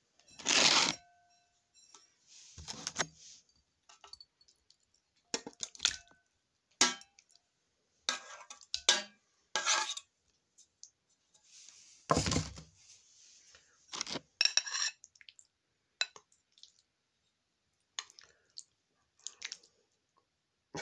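A metal spoon clinking and scraping against an opened tin can and a ceramic bowl as canned sprats in tomato sauce are scooped out, in a series of separate clatters and clinks with quiet gaps between; the loudest come about half a second in and about twelve seconds in.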